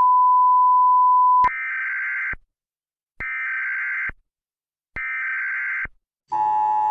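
Emergency Alert System broadcast tones. A loud steady 1 kHz tone runs until about a second and a half in. It is followed by three short bursts of warbling data tones, the encoded header that opens an alert. Near the end the steady two-tone attention signal begins.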